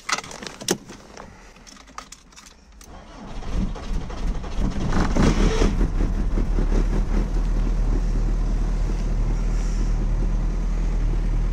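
A few clicks, then the frozen VW Jetta's 2.0 AGG four-cylinder petrol engine is cranked on a run-down battery at about −25 °C. It catches about five seconds in and settles into a steady idle.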